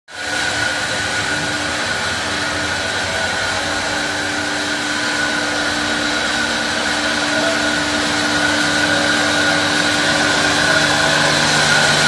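Industrial bandsaw mill running with a steady, high whine while its carriage moves a log toward the blade; a deeper hum joins near the end.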